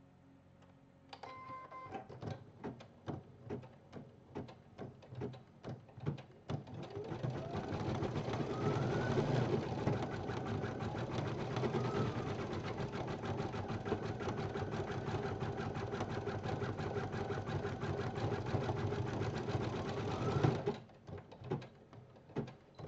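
Brother BP1530L embroidery machine gives a short beep as it starts, stitches slowly with separate needle strokes for a few seconds, then speeds up to fast, even stitching with a motor whine. It stops abruptly about twenty seconds in, followed by a few light clicks.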